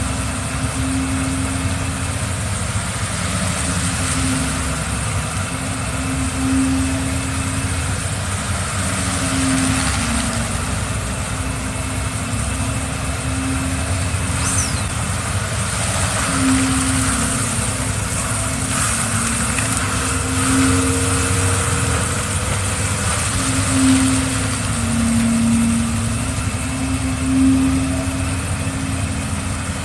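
An engine running steadily, with a low hum that swells and fades every second or two.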